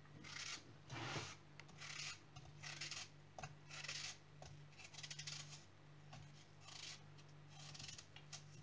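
Blunt kitchen knife slicing pieces off an apple held in the hand, faint crisp cutting strokes about once a second.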